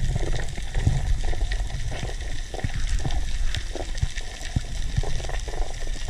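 Water sloshing and bubbling over a steady low rumble, with many irregular small knocks and pops.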